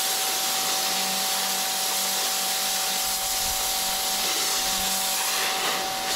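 High-pressure washer spraying water: a steady, even hiss with a constant thin whine and low hum from the pump motor, the jet blasting moss and grime off a truck's engine.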